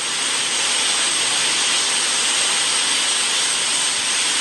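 Steady, loud hiss like white noise, with a thin high whistle held above it.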